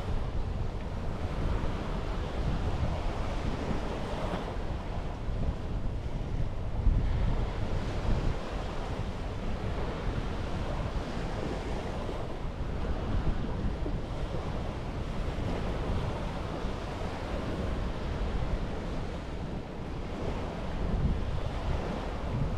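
Sea waves washing onto a beach in a steady surf that swells and eases, with wind rumbling on the microphone.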